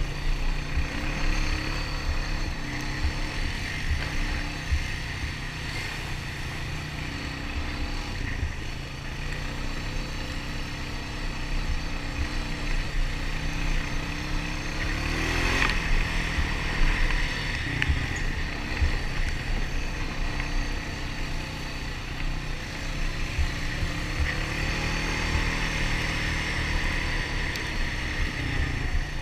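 ATV engine running steadily while riding a trail, its pitch rising and falling briefly about halfway through as the throttle changes.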